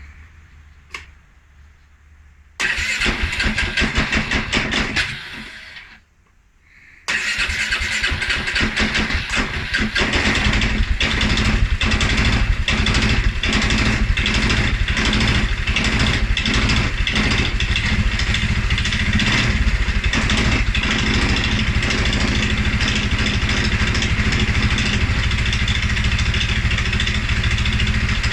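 A 2011 Polaris Sportsman 550 XP ATV's EFI single-cylinder engine starts, runs a couple of seconds and dies away, then starts again and keeps running unevenly before settling into a rough idle. This is the startup stumble and low rough idle that the owner cannot trace; the dealer found the TPS, IAC and TMAP in spec, and the valves, timing, plug and fuel pressure check out.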